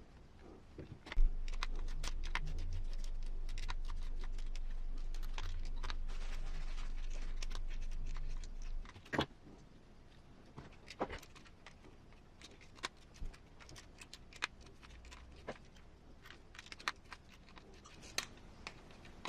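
Small plastic and metal parts of a 1/10-scale RC crawler transmission being handled and fitted together by hand: scattered light clicks and knocks. A steady low hum sets in about a second in and stops abruptly around nine seconds.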